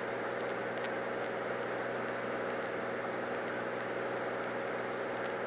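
Cirrus SR22's piston engine and propeller droning steadily in cruise, heard as cabin noise through the headset intercom.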